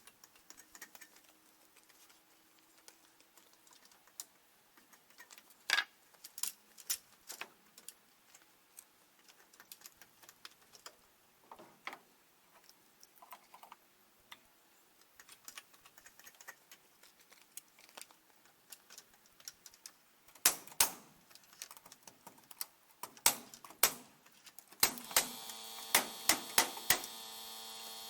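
Scattered light clicks and knocks, a few of them sharp. About three seconds before the end a steady electrical hum of several tones starts and carries on.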